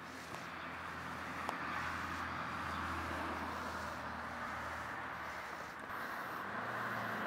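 Parkside PBM 132 B1 petrol lawn mower's 132 cc four-stroke engine running steadily, dipping briefly in level near the end.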